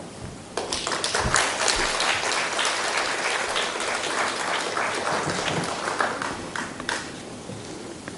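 Audience applauding: the clapping breaks out suddenly about half a second in and dies away around seven seconds.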